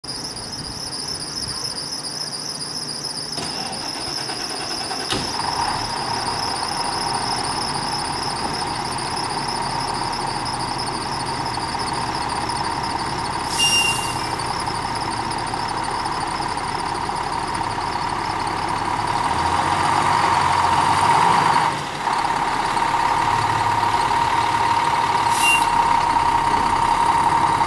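Fire engine's diesel running and getting louder as the rig pulls out of the station bay, over steady high-pitched tones. There are short sharp hisses of the air brakes about 14 seconds in and again near the end.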